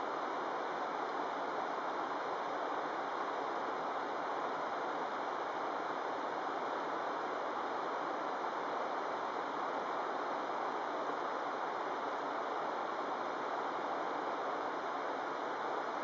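Fast-flowing river rushing over rocks: a steady, even rush of water with no breaks.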